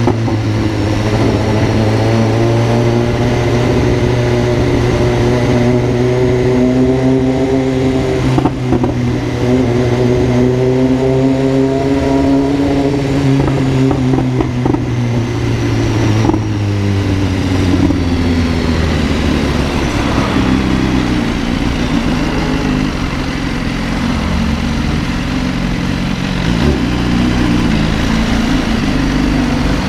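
Vehicle exhaust fitted with a 'granada' straight-through muffler, droning loudly while driving. The engine note climbs slowly over the first half, with a brief drop about eight seconds in, then falls off about sixteen seconds in and runs lower and rougher after that.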